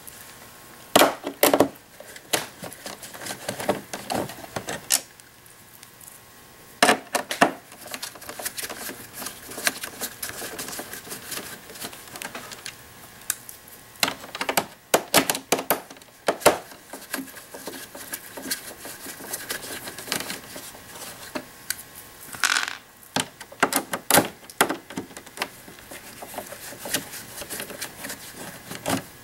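Hand Torx screwdriver undoing screws in the metal top frame of a Jura espresso machine: irregular clicks, taps and clinks of the bit and loosened screws against metal, coming in scattered clusters.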